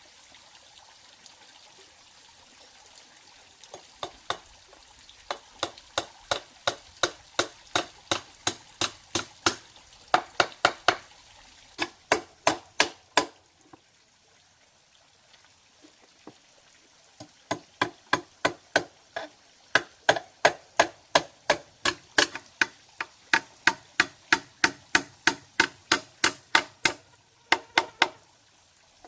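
Repeated sharp blows of a hand tool, about two to three a second, in two long runs with a pause of a few seconds between them, over a faint trickle of water.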